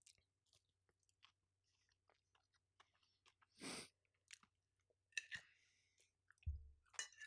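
Faint chewing: a person eating, with scattered soft mouth clicks and crunches, a short breathy rush about three and a half seconds in, and a low thump near the end.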